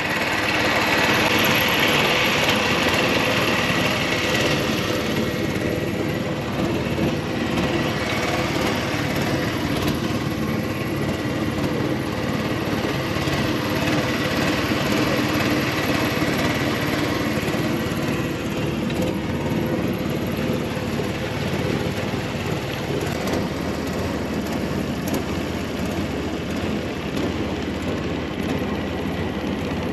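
Motorboat engine running steadily under way.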